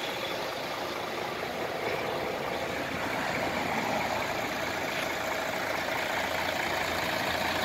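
Mercedes-Benz Actros 3335 truck's diesel engine idling steadily, a little louder from about halfway through.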